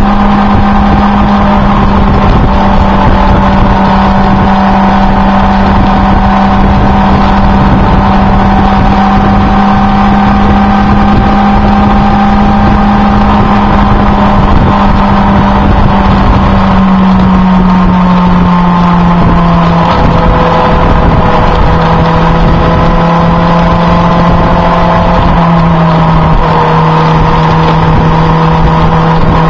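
A vehicle engine runs at a steady cruising speed under a heavy rush of wind noise. The engine note drops slightly twice, once a little past halfway and again near the end, as the revs ease off.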